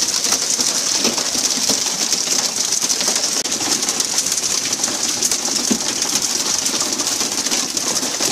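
Steady rushing hiss of water spray and splashing around a pole-and-line tuna boat as tuna are hooked and swung aboard.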